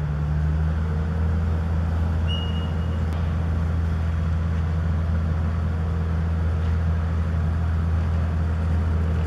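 Large diesel engine running at a steady speed, a deep, even drone. A short high squeak sounds about two seconds in.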